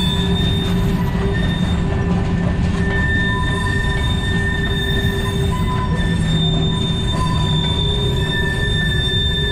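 Canadian Pacific freight train of covered hopper cars rolling past: a steady rumble of wheels on rail, with high squealing wheel tones that come and go.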